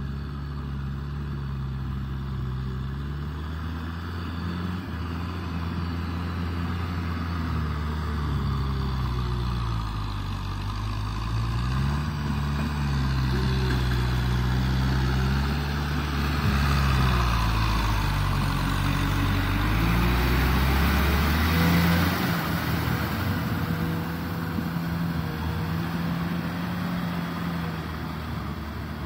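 Kubota M6040SU tractor's four-cylinder diesel engine working under load while its rear rotavator tills wet mud. The engine note rises and falls repeatedly as the revs change, and it gets louder as the tractor comes close. About three-quarters of the way through, the deep rumble drops away and a steadier, higher engine note holds.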